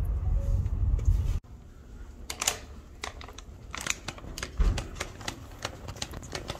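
Low rumble of a car ride that cuts off suddenly about a second and a half in, followed by a scattered run of light clicks and taps.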